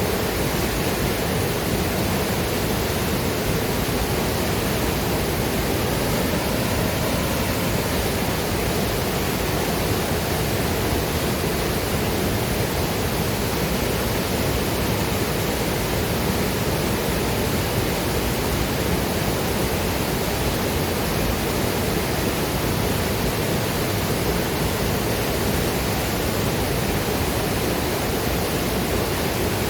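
Waterfall and river water rushing, a steady, even roar of falling and flowing water.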